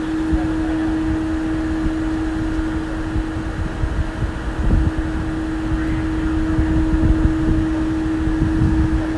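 A steady mechanical hum holding one constant tone, over a low, uneven rumble.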